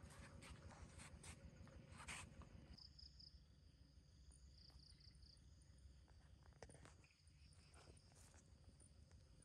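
Faint outdoor ambience: soft steps and rustles during the first three seconds, then quieter, with a steady low rumble and two brief high insect chirps.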